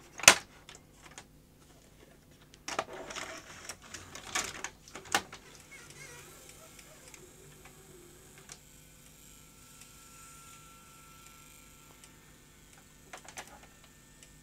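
Panasonic NV-HS1000 S-VHS deck loading a cassette: a sharp click at the start, then a clatter of clicks and knocks as the cassette carriage pulls the tape down into the mechanism, then a quieter steady motor running as the tape is threaded around the head drum, with a few small clicks near the end. The deck loads cleanly, its split coupling replaced.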